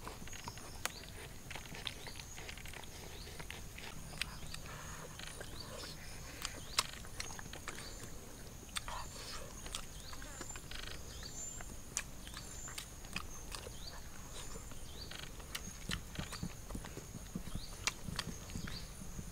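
A husky-type puppy eating from a clay bowl: irregular sharp clicks and crunches of chewing and of the bowl being nosed, over a steady high-pitched insect drone.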